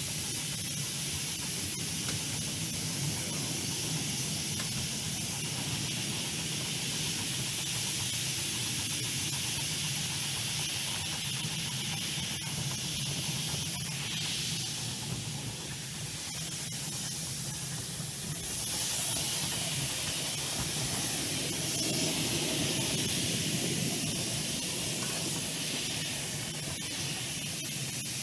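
A light railway train running along the track: a steady hiss over a low rumble, growing a little louder about two-thirds of the way through.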